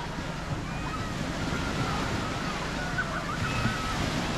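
Small sea waves washing in against the shore, with wind rumbling on the microphone.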